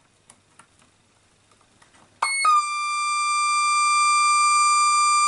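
Casio DH-100 digital horn sounding a steady, high electronic note that starts abruptly about two seconds in, after a few faint ticks. This is the horn with a squawk fault that the repairer traces to oscillation on its 2.5-volt mid-rail, where smoothing capacitor C39 seems not to be doing its job.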